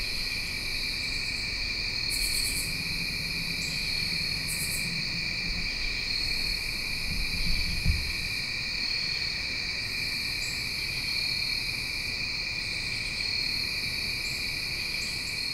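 Steady evening chorus of crickets and other insects, a continuous high trill with a brighter pulse about once a second and occasional short rasps above it. A brief low thump about eight seconds in.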